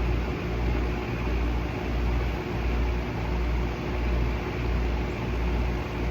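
A motor-driven machine running steadily: an even hiss over a low hum that throbs about one and a half times a second.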